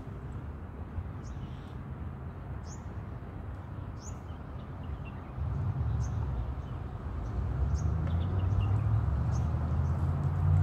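Small birds chirping in short, repeated calls, over a low vehicle engine rumble that comes in about halfway and grows louder.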